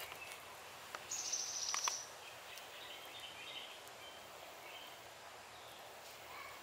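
Outdoor garden ambience with small birds chirping on and off. About a second in there is a brief high, buzzy trill lasting about a second, the loudest sound.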